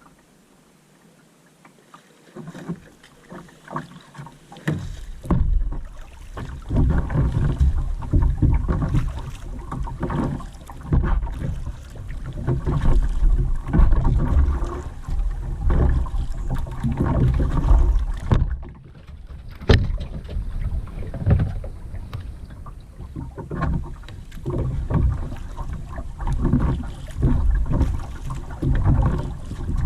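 Kayak being paddled: repeated splashes of paddle blades in the water over a heavy low rumble on the microphone. It is fairly quiet for the first few seconds, then the splashing starts and carries on.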